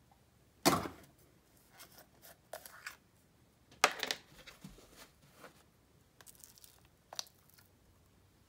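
Slime being pulled from a small plastic tub and scooped with a spoon: short, sticky tearing and crackling sounds, the two loudest about a second in and about four seconds in, with smaller crackles between.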